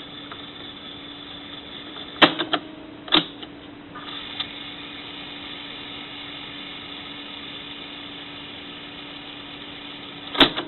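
Tape transport of a 1978 JVC HR-4100 portable VHS recorder winding a cassette with a steady mechanical hum, slow on fast-forward. Sharp clunks of the control keys come about two seconds in, twice more within the next second, and again near the end, and the running sound changes pitch about four seconds in.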